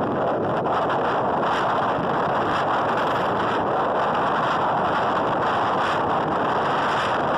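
Steady wind rushing over the microphone of a camera mounted on a vehicle riding along a road.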